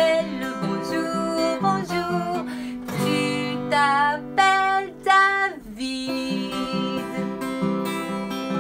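Acoustic guitar strummed as a steady accompaniment, with a woman's voice singing two short wavering notes around the middle.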